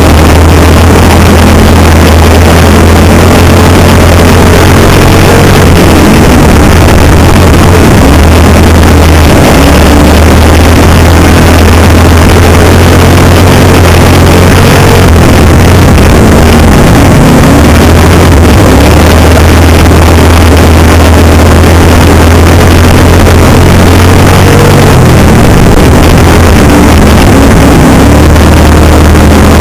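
Camaro American Stock dirt-track race car's engine running hard under racing throttle, loud enough to overload the in-car microphone, easing off briefly every several seconds before coming back on.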